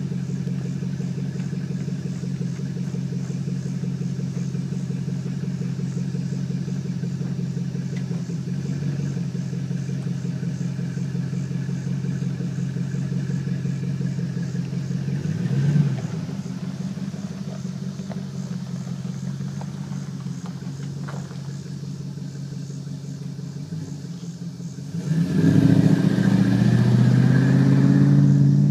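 2005 Chevy Avalanche's V8 running through dual Cherry Bomb Extreme mufflers with the exhaust dumped, a steady loud drone while driving. There is a short rev about halfway through, and a louder surge of acceleration for the last few seconds.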